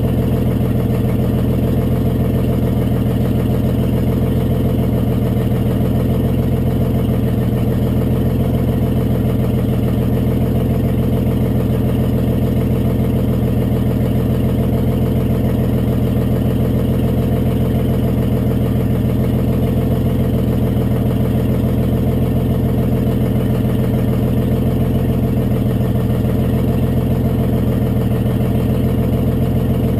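Detroit Diesel 6-71 two-stroke diesel of a 1955 GMC TDH-4512 bus idling steadily, exhausting through a short 4-inch elbow set in the manifold rather than a full exhaust system.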